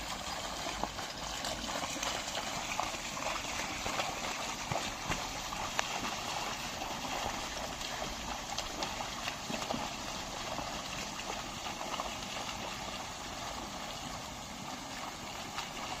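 A pair of bullocks and the plough they pull wading through a flooded, muddy field: steady splashing and sloshing of water and mud, scattered with small sharp splashes.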